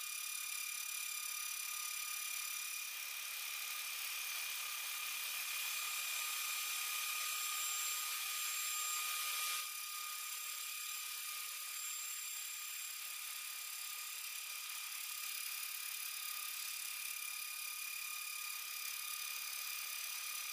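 CNC milling spindle running and cutting aluminium: a steady high whine with several higher tones above it, over a hiss of cutting noise. The hiss eases a little about ten seconds in.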